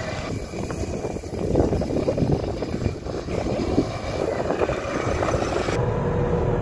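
Mahindra Marazzo MPV driving across a dry dirt field, heard from outside the car as an uneven rushing noise of engine and tyres. About six seconds in it changes abruptly to a steadier hum heard inside the cabin.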